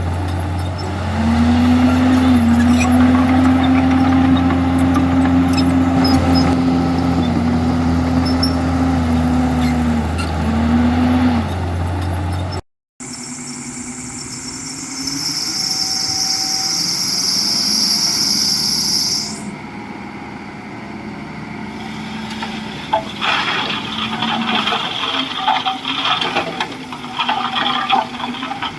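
Heavy diesel engine of a Komatsu D51EX bulldozer running under load, its pitch dipping and rising. After a sudden cut, a steady high squeal lasts a few seconds, followed by irregular clattering and rattling.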